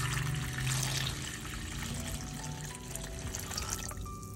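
Water pouring into a pan over raw chicken pieces: a steady splashing rush that tapers off near the end.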